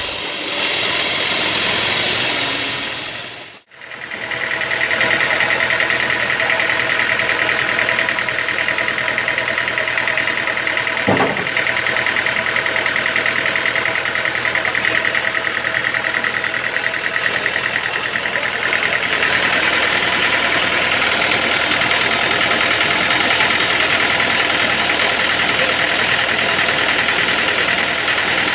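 Sawmill machinery running steadily, engine-like, with a steady high whine over it. The sound drops out sharply for a moment a few seconds in, and a single short click comes near the middle.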